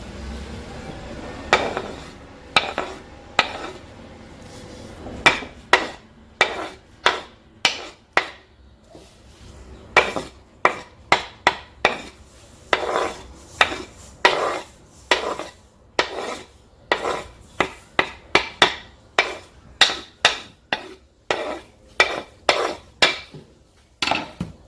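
Repeated sharp knocks of a kitchen utensil, about one or two a second at an uneven pace, each with a brief ring.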